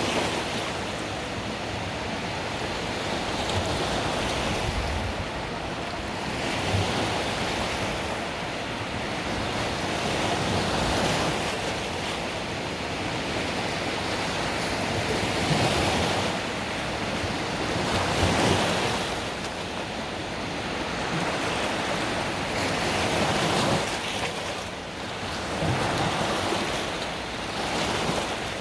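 Mediterranean sea waves breaking and washing up on a beach, the surf swelling and easing every few seconds in a continuous hiss. Some wind buffets the microphone.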